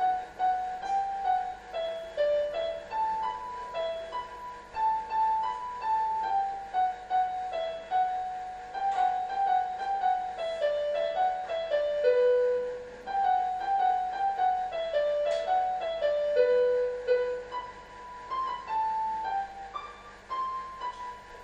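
Yamaha portable electronic keyboard playing a single-line melody, one note at a time, in short stepping phrases with a few longer held notes.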